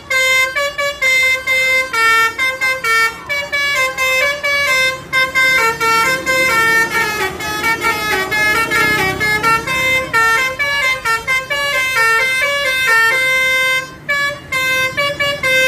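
Basuri 'telolet' musical bus horn playing a fast tune of short tooting notes. The pitch steps up and down from note to note, with only brief gaps between phrases.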